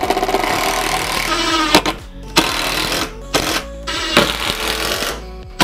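Makita 18V cordless impact driver driving screws into plywood: its rapid hammering rattle runs for nearly two seconds, then comes in several shorter bursts of under a second each with brief pauses between.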